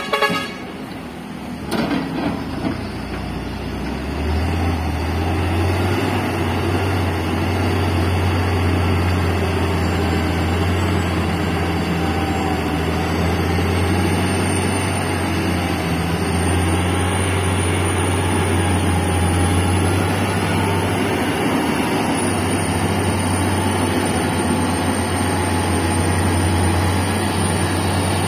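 A short horn toot at the start, then the diesel engine of a loaded Shantui SK90-C6 90-tonne mining dump truck pulling away and running steadily with a deep drone. A thin high whine drifts up and down in pitch over it in the second half.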